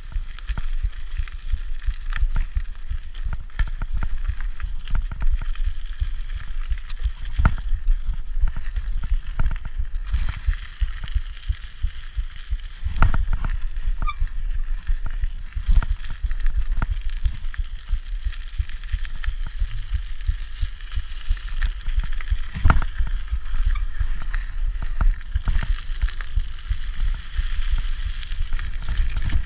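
A 1990 Peugeot Hurricane rigid mountain bike riding fast over a dirt trail: steady wind rumble on the microphone and tyre noise on loose dirt, with a few sharp knocks and rattles as the unsuspended bike hits bumps.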